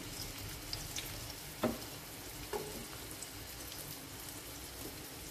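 Chopped onion sizzling steadily in hot oil in a nonstick wok, with two light knocks, one about a second and a half in and one near the middle.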